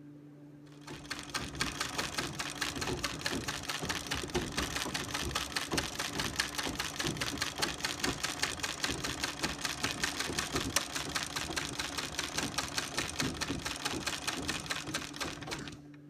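Early-1900s Standard Rotary treadle sewing machine, set up for chain stitch with a spyder, stitching through denim: a rapid, even clatter of stitches that starts about a second in and stops just before the end.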